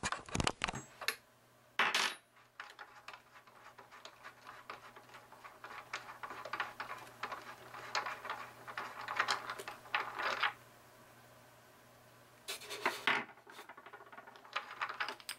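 Hands handling the parts of a disassembled self-balancing scooter: a run of light clicks, clinks and rattles of small metal and plastic pieces, in two busy stretches with a short lull between.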